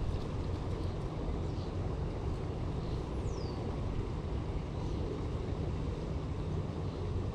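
Steady low outdoor rumble at the waterside, with one short whistle falling in pitch about three seconds in.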